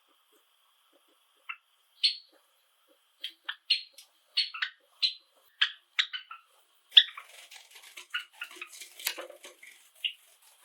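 Pet Java sparrows calling: a string of short, sharp chirps, then from about seven seconds in a busier, denser run of overlapping chirps and clicking notes.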